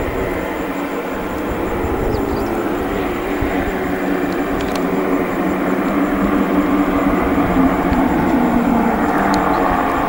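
Beechcraft King Air C90A's twin PT6A turboprop engines running at low power as the aircraft taxis and turns on the ground. It is a steady hum with a few held tones, growing slightly louder in the second half.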